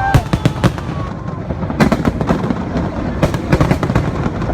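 Fireworks bursting: three clusters of sharp crackling pops over a steady low rumble.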